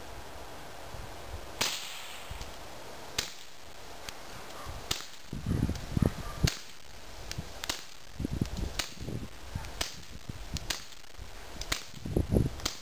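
A Walther P22 firing CCI standard-velocity .22LR through a dry Thompson Machine Isis 9mm suppressor: a string of about nine suppressed shots, each a short sharp crack, roughly one every second and a half.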